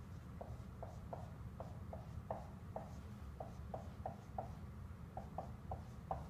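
Dry-erase marker squeaking across a whiteboard while writing an equation: about fifteen short squeaky strokes at an uneven pace.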